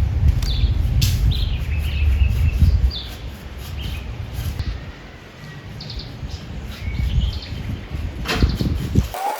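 Small birds chirping in short, scattered calls over a low rumble, which is heaviest in the first three seconds. A couple of sharp clicks come near the end.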